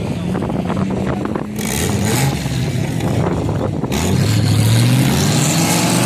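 Engine of an older Nissan Patrol 4x4 revving hard as it claws up a soft sand dune, its wheels spinning in the sand. The revs climb from about four seconds in, and the engine gets louder with a hissing rush over it.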